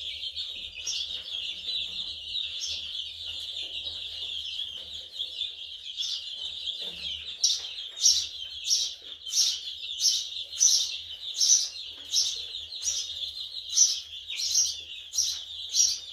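Young chicken chicks peeping continuously in a dense, high-pitched chorus. In the second half it grows louder, with sharp sounds standing out about twice a second.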